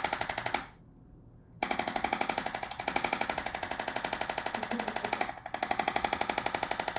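Handheld percussive treatment tool rapidly hammering against the muscle at the front of the hip, a fast, even tapping. It stops just after half a second in, starts again about a second later, and pauses briefly past five seconds.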